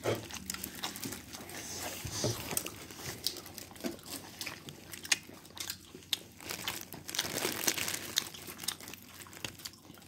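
A child chewing fried chicken close to the microphone: irregular crunching and crackling bites with wet mouth sounds.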